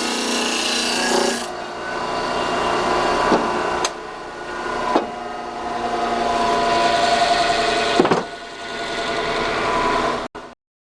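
Disc sander running with wood rasping against the abrasive disc, louder for the first second and a half, with a few sharp knocks; it cuts off abruptly near the end.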